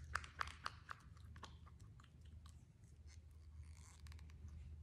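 Small spoon working wet pigmented paper pulp in the palm of a hand: a quick run of small wet clicks and squishes that thins out after about a second and a half, leaving only faint ticks.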